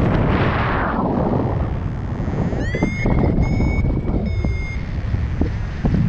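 Paraglider variometer beeping its climb tone: a run of short, high beeps, each sliding up in pitch as it starts, about halfway through, which signals that the glider is rising in lift. Steady wind rush on the microphone from the airflow of flight runs under it, loudest at the start.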